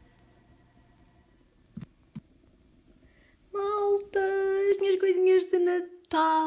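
A few seconds of quiet with two light clicks, then a woman singing a few drawn-out notes from about halfway in.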